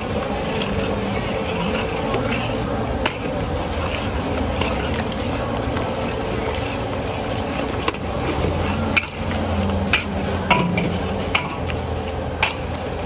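Two metal ladles scraping and clinking irregularly against a steel wok as a big batch of eggs is scrambled, over steady sizzling.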